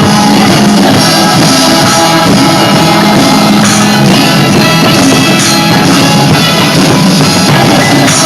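A live band playing a song, with a drum beat under sustained instrument notes.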